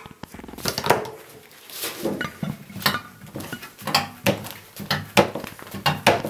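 Thin steel sheet being bent and handled by gloved hands, giving irregular metallic crackles and clanks as the sheet flexes.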